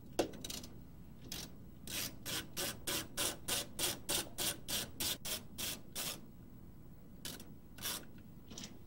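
A click near the start, then a screwdriver worked inside a Mercedes W210 steering column: a run of about fourteen short rasping clicks, about three a second, and two more near the end.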